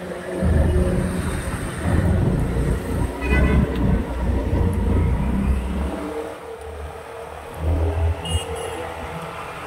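Road traffic on a busy highway: vehicles passing with a heavy low rumble that swells and falls, and a short horn-like tone about three seconds in.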